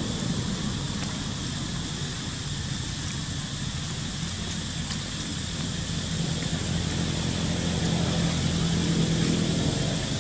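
A motor vehicle's engine running, a low steady hum that grows louder in the second half, over a steady high-pitched hiss.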